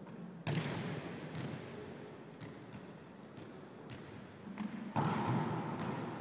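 Volleyball struck hard twice, about four and a half seconds apart, each sharp smack ringing on in the echo of a large gym, with a few light taps and shoe sounds in between.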